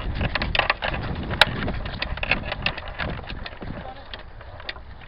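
Footsteps crunching and snapping through dry twigs and leaves: irregular crackles that fade away near the end.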